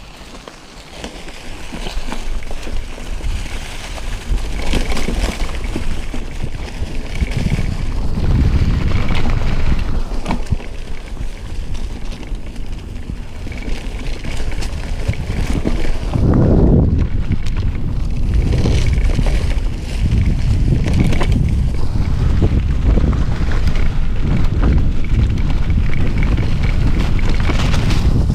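Wind buffeting the microphone, with mountain bike tyres rumbling over a rough dirt trail, growing louder over the first few seconds.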